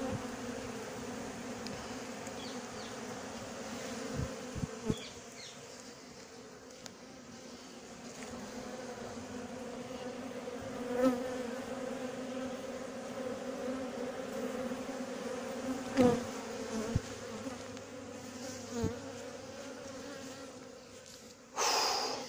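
Honeybees buzzing in a steady hum around a comb cut from a wild colony, with a few soft knocks from the comb being handled. Near the end comes a brief loud rush of noise.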